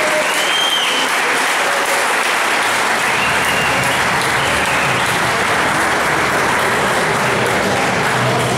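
Crowd applauding, a dense steady clapping that marks the end of a cage fight stopped with one fighter down on the mat.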